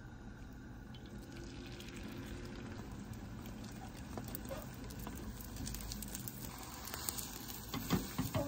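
Beaten egg sizzling quietly and steadily in an oiled square rolled-omelette pan, with a few light spatula clicks near the end as the omelette is rolled.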